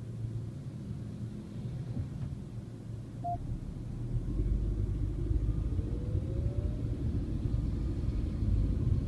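Low rumble of engine and road noise inside a Mercedes-Benz car's cabin, growing louder about four seconds in as the car picks up speed. A single short beep sounds about three seconds in.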